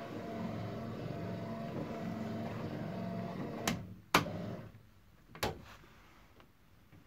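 A small electric motor in the car's newly wired systems hums steadily, then stops a little over halfway with a sharp click; two more switch clicks follow.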